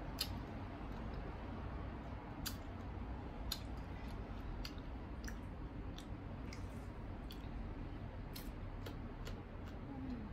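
Close-up chewing of crisp, unripe green mango: sharp crunches and wet mouth clicks at irregular intervals, about one a second, over a steady low hum.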